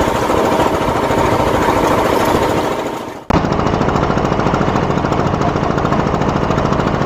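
Fishing boat's engine running steadily with a fast, even chugging. It dips and fades out briefly about three seconds in, then comes straight back at the same level.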